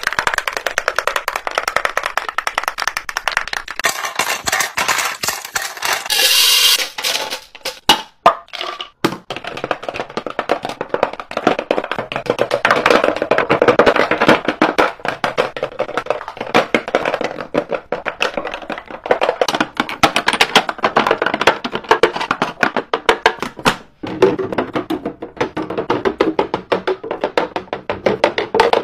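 Rapid, irregular clacking and tapping of plastic makeup cases being set down into clear acrylic organizers, several knocks a second.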